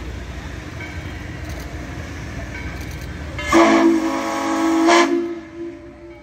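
Train rumbling along, then about halfway through the locomotive whistle blows one long chord-like blast of about a second and a half that fades away near the end.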